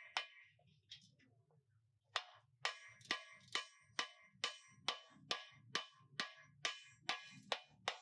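Hammer striking steel with a metallic ring: a few blows, a short pause, then steady hammering at about two blows a second from about two seconds in.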